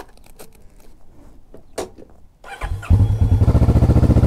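A few light clicks, then the Kawasaki Vulcan S 650's parallel-twin engine is started: a short burst of cranking about two and a half seconds in, after which it catches and settles into a steady idle.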